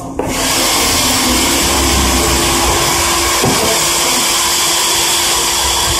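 An electric motor with a fan switches on just after the start and runs steadily, a loud even whirr with a faint steady hum underneath.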